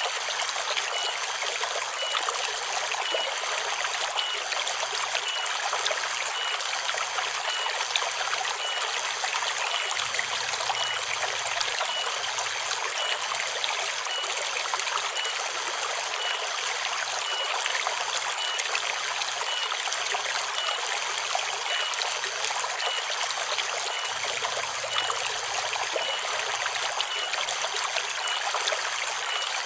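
Forest river water flowing and trickling steadily over stones. A faint high note repeats evenly, a little faster than once a second.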